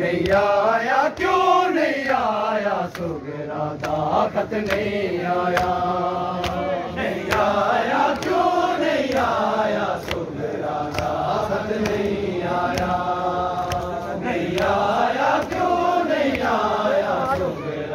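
Men's voices chanting a noha, the Shia Muharram mourning lament, in long phrases that rise and fall in pitch. Sharp slaps of hands beating on bare chests (matam) keep a steady beat under the chant.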